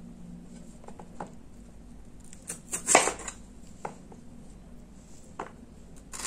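Handheld crinkle-cut potato cutter pressed down through a raw potato, its blade knocking on the cutting board in about half a dozen irregular taps, the loudest about three seconds in.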